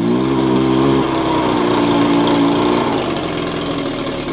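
Echo PB-265L backpack leaf blower's small two-stroke engine running on a newly installed short block. Its note shifts about a second in and drops a little around three seconds in, so the engine speed is not steady.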